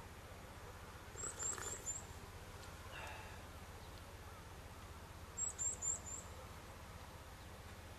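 A small bird calling twice, each time a quick run of four high, thin notes: the first about a second in, the second about four seconds later. Under it is a faint, steady low hum.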